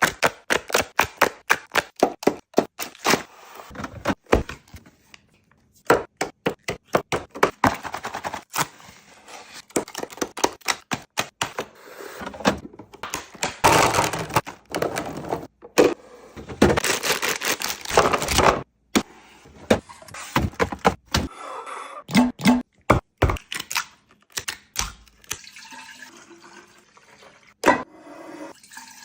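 Rapid runs of knocks and clatters, as of hard objects being handled and set down, with two longer rushing noises partway through that sound like running water.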